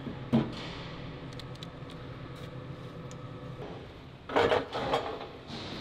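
Steel workpieces being handled: a sharp knock just after the start, then a louder run of metal knocks and scrapes about four and a half seconds in, over a steady factory hum.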